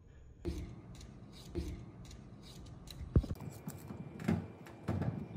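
Kitchen preparation sounds: a run of short scrapes and clicks of utensils and food being handled, with one sharp knock about three seconds in.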